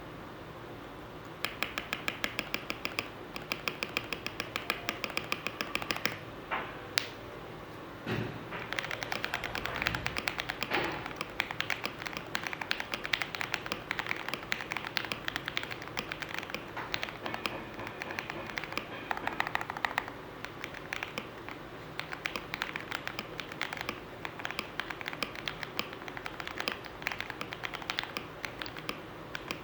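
Fast typing on an E-Yooso Z11 mechanical keyboard with lubed Jixian Matcha Ice linear switches, foam-modded, a rapid stream of key clicks. It starts about a second and a half in, and breaks off briefly about six seconds in before resuming.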